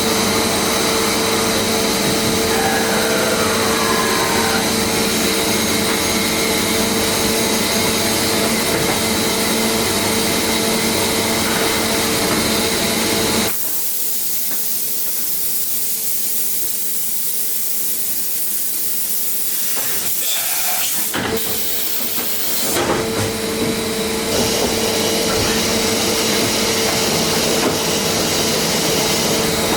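Mazak FH580-40 CNC horizontal machining centre running: a steady machine hum with a constant tone. About halfway through, the hum drops away and a strong hiss takes over for roughly nine seconds, with a couple of clicks near its end, before the hum returns.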